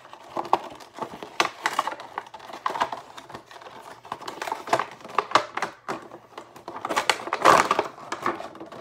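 A cardboard Funko Pop box being opened by hand: irregular crinkles, taps and rustles of card and thin plastic. The loudest rustle comes near the end, as the clear plastic window insert is pulled out of the box.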